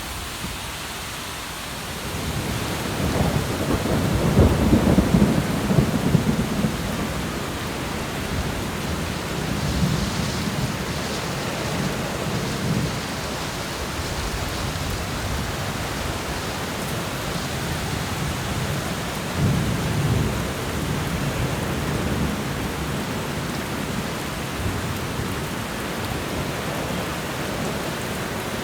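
Heavy rainstorm: a steady downpour hissing throughout, with deep low rumbles swelling up a few seconds in, again around ten seconds in, and near twenty seconds in.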